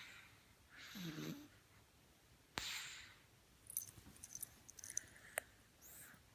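Faint snoring: one rasping snore about a second in and a breathy exhale near the end. Between them a sudden knock and a run of small crackling clicks, like rustling.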